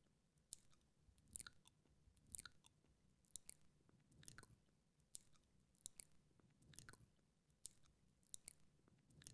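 Quiet, close-up wet mouth sounds: lip and tongue smacks and clicks, about one or two a second.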